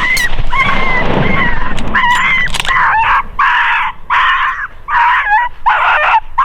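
A sharp rifle crack at the very start, then a shot animal crying and yelping in about eight repeated half-second cries, the sound of a hit predator.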